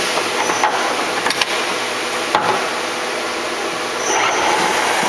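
A 1992 Shizuoka B-15V 50-taper CNC vertical machining center milling metal: a steady, rough cutting noise with a few sharp clicks. About four seconds in it gets louder and a steady whine comes in.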